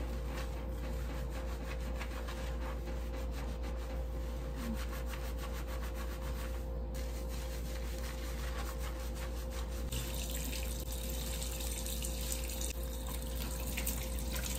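Water running steadily into a basin while shampoo-lathered hair is scrubbed by hand; about ten seconds in, the water's hiss turns brighter.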